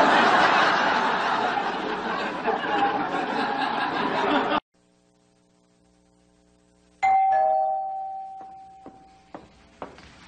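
Sitcom studio audience laughing, cut off suddenly about four and a half seconds in. After a short near-silent gap, an apartment doorbell rings a two-note ding-dong chime, a higher note then a lower one, fading out over a couple of seconds.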